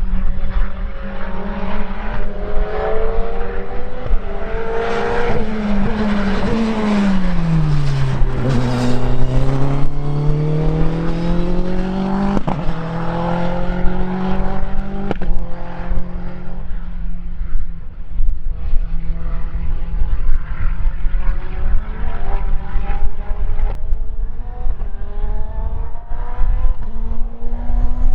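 Praga R1 T race car's turbocharged four-cylinder engine running hard on track. Its pitch drops about five seconds in as the car slows, then climbs under acceleration, with sharp cracks at the gear changes around twelve and fifteen seconds in, and settles to a steadier note.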